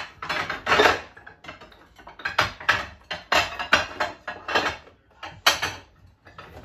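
Kitchenware being handled: an irregular run of knocks and clatters as dishes and containers are moved about and picked through.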